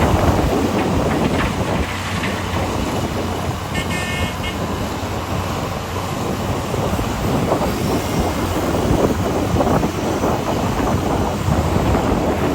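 Heavy diesel mining machinery running with a steady, loud rumble: the Komatsu PC800 excavator and HD465 haul trucks at work. A short, high-pitched beep comes about four seconds in.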